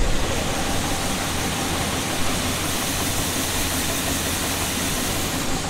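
Kenworth semi truck's diesel engine idling steadily.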